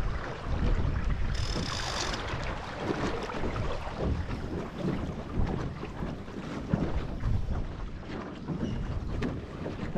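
Wind buffeting the microphone and water rushing and splashing along the hull of a Melges 15 sailing dinghy under way, with a brief sharper hiss about a second and a half in.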